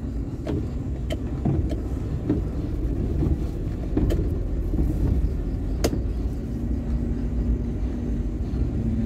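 Car driving slowly, heard from inside the cabin: a steady low rumble of engine and tyres on a rough road, with a few sharp clicks and knocks scattered through it.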